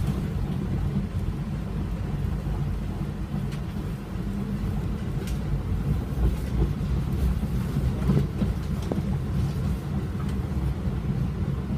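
Steady low rumble of a tram running along the track, heard from inside the passenger cabin, with wheels on rails and running gear. A few faint clicks come through now and then.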